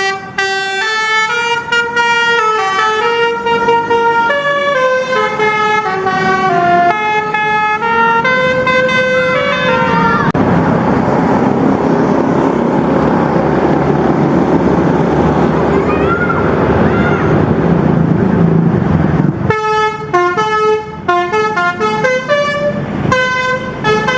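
Bus basuri horn, the multi-tone musical air horn of an Indonesian 'telolet' bus, playing a tune of short stepped notes. Midway the tune gives way to about nine seconds of loud, steady rushing noise, and the horn melody starts again near the end.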